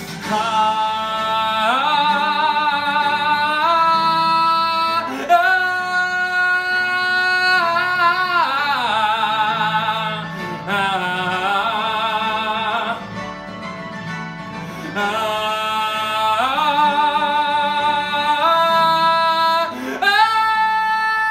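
A man singing in full voice, belting long, high held notes with vibrato. The phrases are separated by short breaks, and each slides up into its note.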